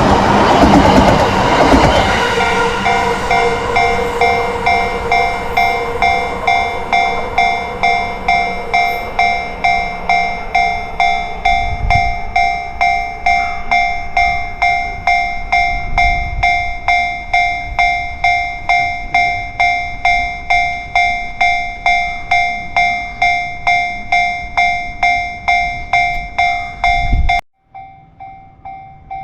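A Yamanote Line train rushes over the level crossing at first, then the crossing's warning bell rings on its own in an even, steady clang at just under two strikes a second. Near the end the ringing cuts out abruptly and comes back fainter.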